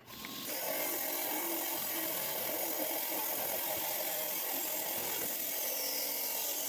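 Rock saw cutting through a cold water agate nodule, a steady grinding at constant level. It is a hard cut, which the cutter takes as a sign of solid agate rather than quartz.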